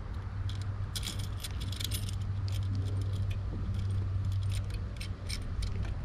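Wires of a 14/3 power cable and their crimp terminals clicking and rattling against the metal conduit adapter and motor end plate as they are fed through, a scatter of light irregular ticks over a steady low hum.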